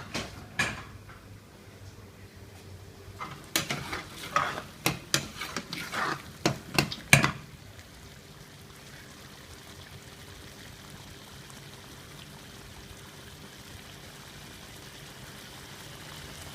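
Metal utensils knocking and scraping against cookware: a quick string of sharp clinks for the first seven seconds or so, then only a steady faint hum with a light hiss.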